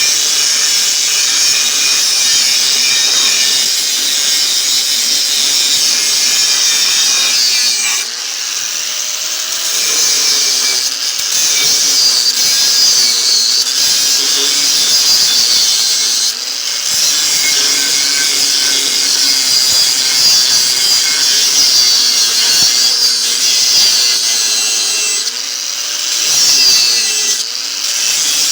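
Angle grinder with an abrasive cut-off wheel cutting through a refrigerator compressor's steel shell: a steady high-pitched grinding whose motor pitch sags and recovers as the wheel is worked back and forth, with a few brief dips.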